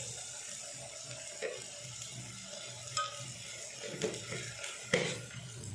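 Curry masala sizzling steadily in a steel pot while ginger paste goes in, with a few sharp clinks and scrapes of a steel spoon against the pot and jar, the loudest about five seconds in.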